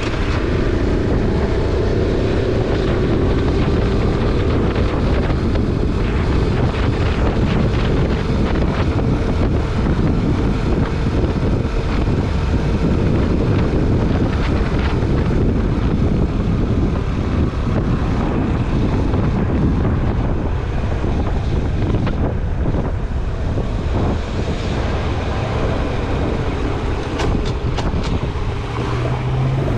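Honda Super Cub 90's small four-stroke single-cylinder engine running steadily at cruising speed, with wind buffeting the microphone.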